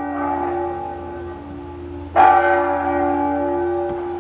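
Clock-tower bell striking the hour. One stroke comes about two seconds in, and each stroke rings on and slowly fades; the stroke before is still ringing at the start.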